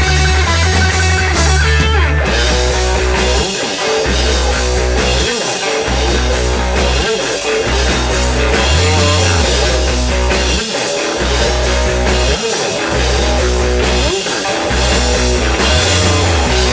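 Rock band playing live: electric guitar over a heavy bass line and drum kit, with no singing.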